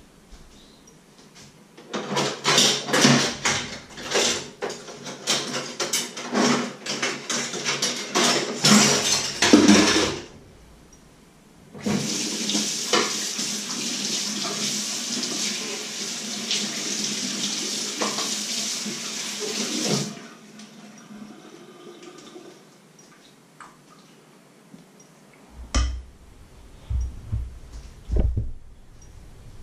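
Dishes and utensils clattering in a kitchen sink for about eight seconds. Then a tap runs steadily for about eight seconds and is shut off. A few low thuds follow near the end.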